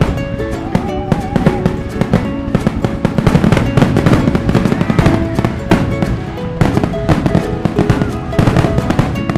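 Fireworks going off in a dense, irregular barrage of bangs and crackles, over music with held notes.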